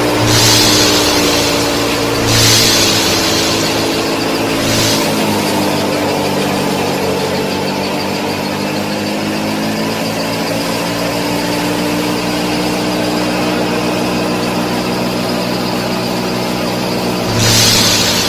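A machine motor running steadily with a hum of several pitches that shift slightly partway through, broken by short hissing bursts about 2.5, 5 and 17.5 seconds in.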